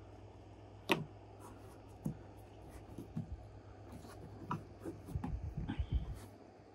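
Hands pressing and smoothing black tape onto a tube: soft rubbing with a few light clicks and taps, the sharpest about a second in, and a run of soft knocks around five to six seconds in.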